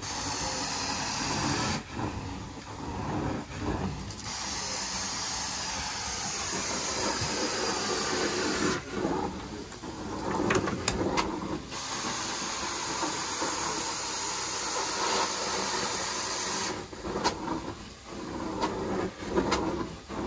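Hot water extraction carpet-cleaning wand hissing as it sprays and sucks, in three passes of several seconds each with pauses of two to three seconds between them.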